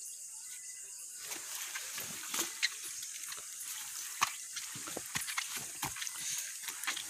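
Scattered rustles, clicks and small splashes of wading and handling in a shallow creek among wet leaves, over a steady high hiss.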